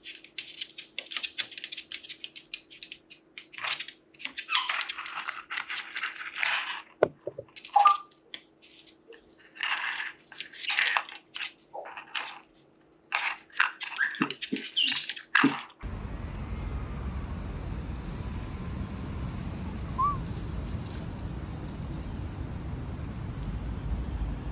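White-bellied caiques chirping and squawking in quick, high-pitched bursts, with a few knocks on a tabletop. About sixteen seconds in, this cuts off abruptly and gives way to a steady, low rushing outdoor background.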